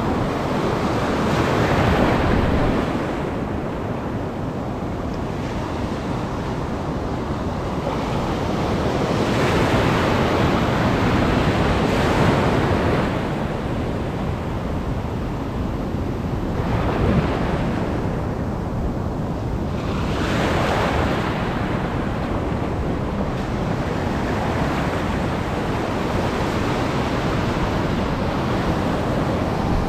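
Heavy surf in a rough sea, with waves surging up and breaking several times, and wind buffeting the microphone.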